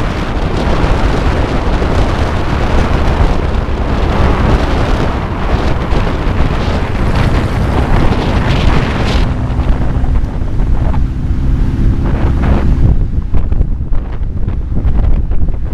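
Loud wind buffeting the microphone over the low rumble of a car engine on the move. A faint steady engine hum comes through in the middle, and the hiss thins out over the last few seconds.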